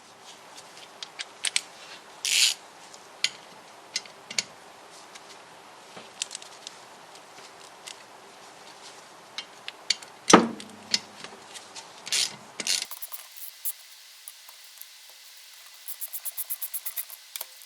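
Hand tools working bolts out of a bare A-series engine block: scattered metal clicks and clinks, with a single loud knock about ten seconds in. Near the end comes a fast run of about a dozen ratchet clicks.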